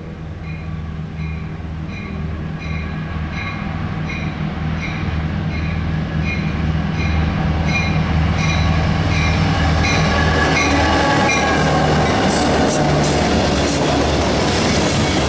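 Diesel freight train approaching and passing close: the locomotives' engines rumble louder as they near, then the cars' wheels clack over the rail joints. A bell dings steadily, about three times a second, through the first part as the train comes in.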